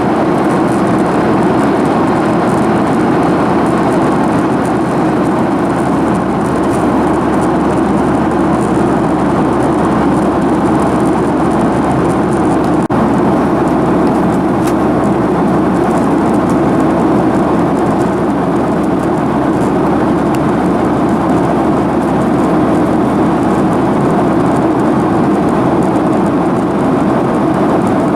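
Steady, loud roar of a Boeing 737-900ER's CFM56-7B jet engines and rushing air, heard inside the cabin in flight.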